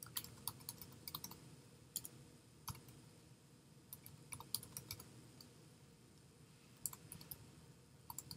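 Computer keyboard typing, faint, in several short bursts of key clicks with pauses between them.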